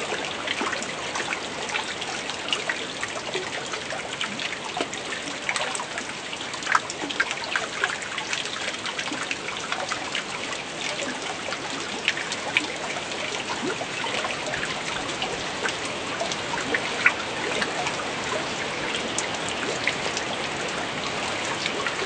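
Water drops falling from moss onto a shallow pool of water: a steady hiss of falling water dotted with many small splashing drips.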